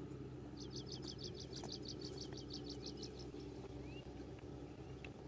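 A bird singing a fast trill of high, evenly spaced notes, about seven a second, lasting over two seconds, followed by a single short rising chirp, over a steady low hum.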